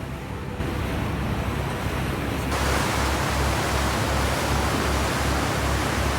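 Steady rushing noise of wind and water on the deck of a moving cruise boat, over a low throb. It gets louder in two sudden steps, about half a second and two and a half seconds in.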